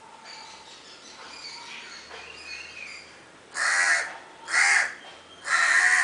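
Crow cawing three times, harsh calls about half a second each, the last the longest.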